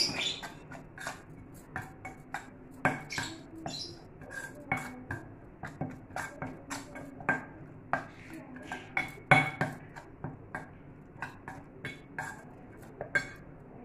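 Metal spoon stirring and scraping a spice-and-yogurt masala in a stainless steel bowl, with repeated irregular clinks of the spoon against the bowl.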